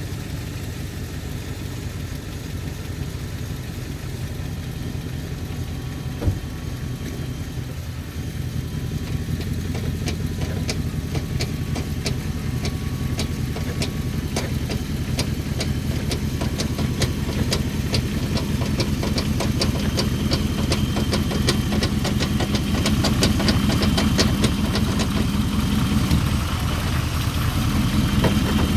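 Chrysler 300C's 5.7-litre Hemi V8 running, with a strange, regular knocking that becomes plain about a third of the way in and grows more distinct. There is one sharper knock about six seconds in.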